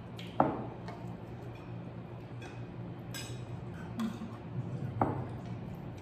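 Spoons and forks clinking against plates and glassware at a meal table: a few sharp clinks, the loudest about half a second in and another about five seconds in, with lighter ticks between, over a steady low hum.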